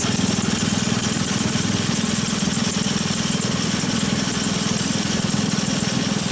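Small engine of a motorized rail rider running steadily under way on the track, over a constant hiss of wind and wheel noise.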